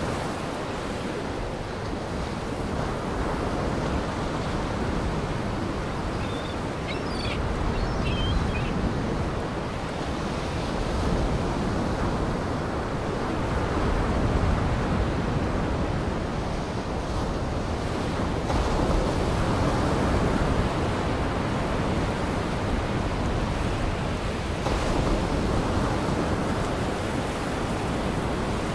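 Waves breaking and washing ashore in a steady rush of surf, with a few faint high chirps about seven to eight seconds in.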